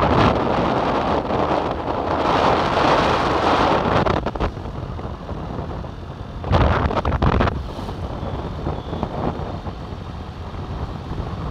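Wind buffeting the microphone of a phone held at the window of a moving vehicle, over the vehicle's road noise. It is loudest for the first few seconds, then eases, with one strong gust a little past the middle.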